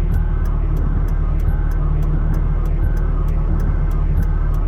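Steady low rumble of a vehicle's engine heard inside the cab, with a light regular ticking about three to four times a second.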